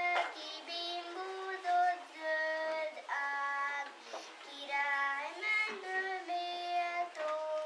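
Young children singing a song together, held notes in a simple melody with short breaks between phrases.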